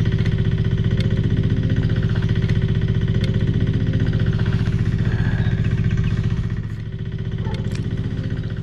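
An engine running steadily with a fast, even pulsing; it drops in level about six and a half seconds in.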